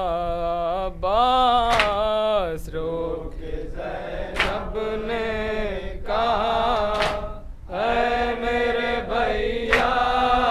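Group of men chanting an Urdu noha refrain in unison without instruments. A sharp hand slap on the chest (matam) lands about every two and a half seconds, four strikes in all.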